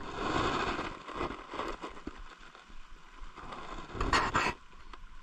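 Close handling noise: rustling and scraping of hands, line and gear as a freshly caught giant freshwater prawn is taken in hand, with a louder rustle about four seconds in.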